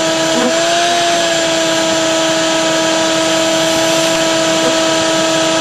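Vacuum running steadily through a corrugated hose: a constant whine over rushing air, its pitch lifting briefly about a second in.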